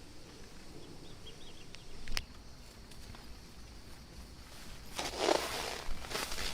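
Footsteps on the forest floor, an irregular run of noisy crunching steps starting about five seconds in, after a single sharp click about two seconds in.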